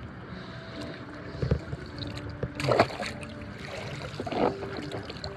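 Shallow seawater sloshing and splashing as a person wades and works a hooked pole through it. There is a low knock about one and a half seconds in, and louder splashes just before the three-second mark and again about a second and a half later.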